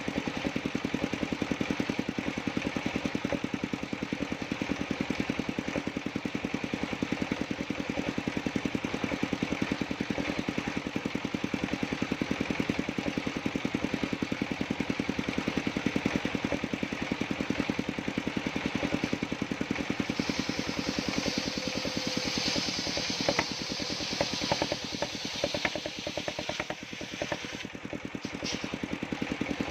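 Engine of a circular sawmill running steadily with a fast, even pulse. About two-thirds of the way in a higher hiss joins it, with a few sharp knocks near the end.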